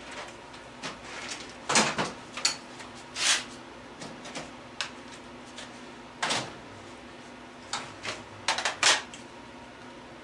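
Irregular clacks and knocks of tools and stove parts being handled, a dozen or so sharp hits with a cluster near the end, over a faint steady hum.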